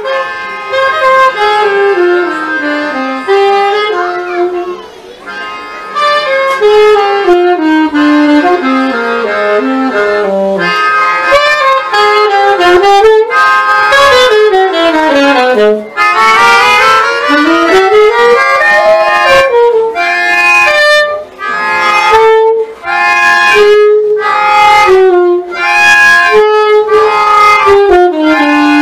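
Instrumental music: a lead melody runs up and down in quick steps over accompaniment, then turns to short rhythmic chord strokes in the second half.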